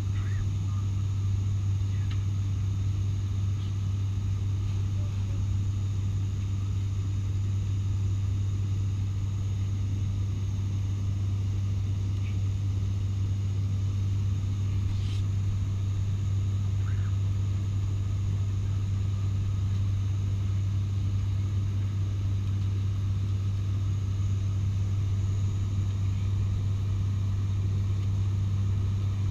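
Steady cabin drone of an ATR 72-600 turboprop in flight: a constant low hum from its six-bladed propellers and engines, a fainter hum an octave above, and rushing air. A few faint ticks over the top.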